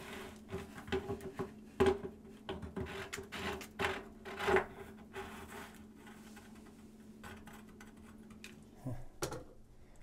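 Irregular metallic clicks and scrapes of a wrench, then a hand, working the lower heating element of an electric water heater loose and unscrewing it from the tank, busiest in the first five seconds. A faint steady hum runs underneath.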